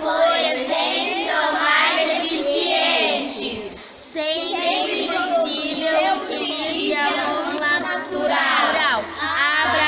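A group of children singing together, with a brief pause for breath about four seconds in.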